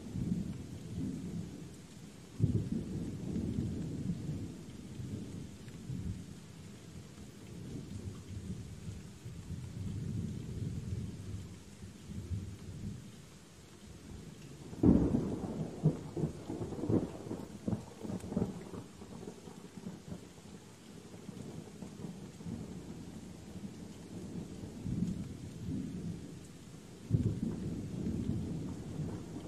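Steady rain with rolling thunder: a rumble a couple of seconds in, a louder sudden clap rolling on for several seconds about halfway through, and another rumble near the end.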